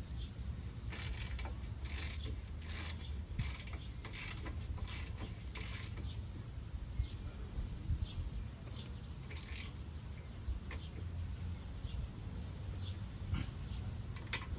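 Hand ratchet clicking in quick strokes as the brake caliper bracket bolts are run in and tightened. The clicks come thickly for the first six seconds or so, then only now and then, over a steady low hum.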